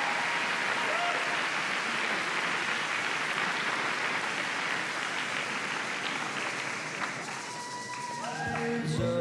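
A large audience applauding steadily. Music starts up near the end as the clapping eases.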